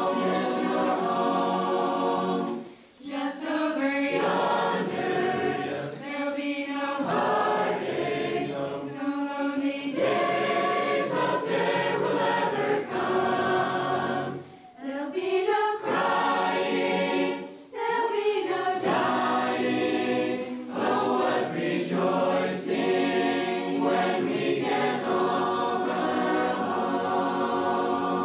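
Mixed choir of young men and women singing a gospel hymn a cappella in parts, with short breaks between phrases.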